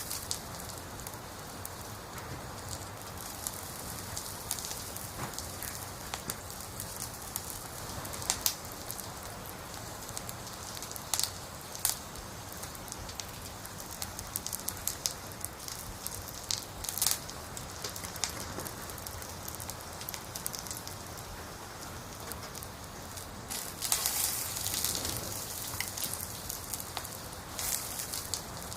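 Burning firewood crackling: a steady hiss with irregular sharp pops, and a louder flare of hissing near the end.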